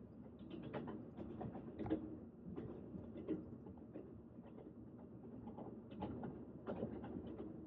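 Train running along the track: a steady low rumble with frequent irregular clicks and rattles over it.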